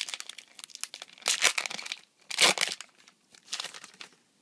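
Foil wrapper of a Pokémon trading card booster pack being torn open and crinkled, in three crackling bursts, the loudest about halfway through.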